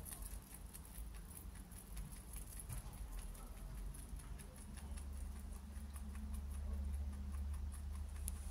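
Young rabbit chewing dry hay: quick, irregular crunching clicks. A low rumble underneath grows stronger about halfway through.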